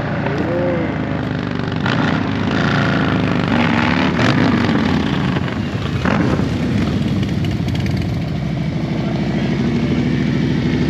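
Motorcycle engine running loud and close, its pitch rising and falling a few times as the throttle is worked while the bike rides.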